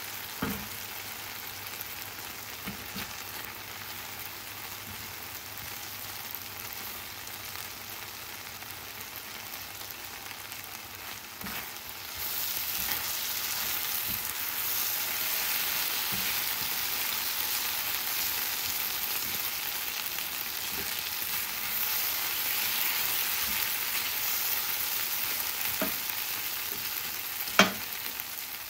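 Diced chicken sizzling in oil and sauce in a frying pan, a steady frying hiss that gets louder about halfway through. A spatula stirs and scrapes it, with a few clicks against the pan and one sharp knock near the end.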